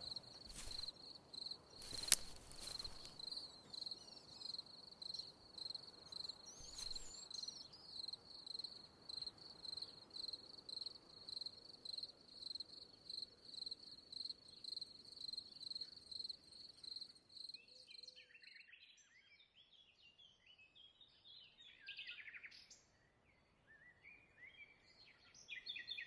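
A cricket chirping steadily, a high pulsing trill about twice a second, which stops about eighteen seconds in. After that come faint, scattered bird chirps.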